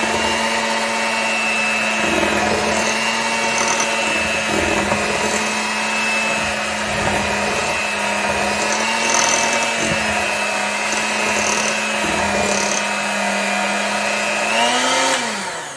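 Hamilton Beach electric hand mixer running at a steady speed, its beaters mixing flour into cake batter in a glass bowl. The motor hum lifts briefly near the end, then winds down to a stop.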